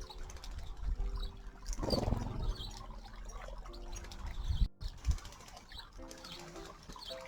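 Small birds bathing in a shallow stream: splashing and wing flapping with a few chirps, loudest about two seconds in, over soft background music.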